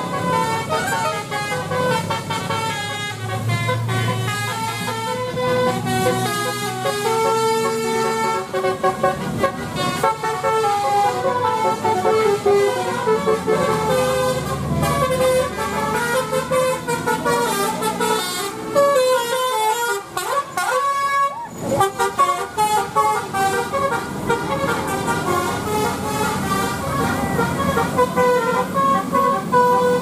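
Telolet horns on passing tour buses: multi-tone bus horns playing quick stepped melodies, one bus after another, over engine noise. About twenty seconds in, a rising siren-like sweep cuts across the tunes.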